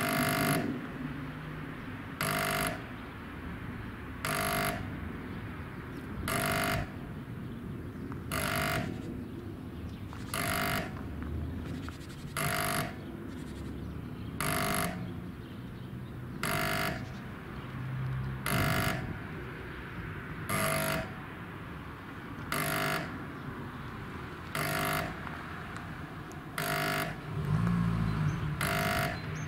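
Soviet-type (SSSR) level-crossing warning buzzer, with AŽD 71 lights, giving short buzzes about every two seconds from the moment the crossing activates, warning of an approaching train. A road vehicle's low engine sound comes in near the end.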